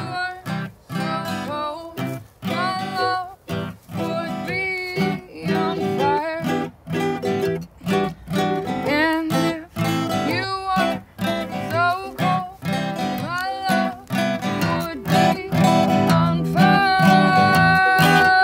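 An acoustic guitar and a ukulele strummed together, with a voice singing a melody over them. Near the end the music turns to louder, steady held notes.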